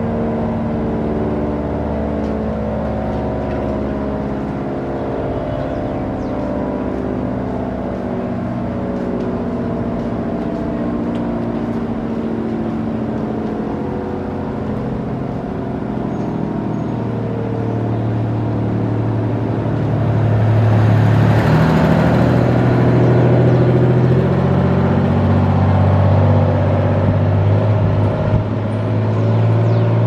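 ACA Allertor 125 rotating outdoor warning siren sounding its steady Alert tone on a monthly test, with several tones held together. It grows louder about two-thirds of the way in as the horns swing round toward the listener.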